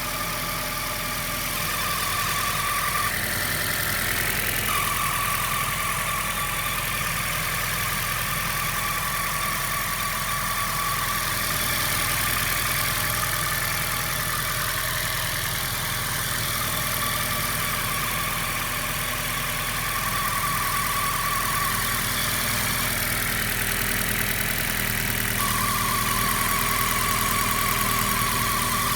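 Suzuki Baleno engine idling after a cold start, with a high-pitched whine that drops out and comes back every few seconds over the steady running. This whine is the bad sound the owner is asking about.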